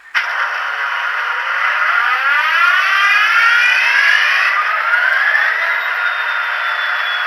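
Sound decoder in an HO-scale GP60 model locomotive playing its EMD diesel prime mover start-up through a small speaker in a ported box: the sound comes on suddenly and loud, winds up in pitch over the first few seconds and settles into a steady run, with no deep bass.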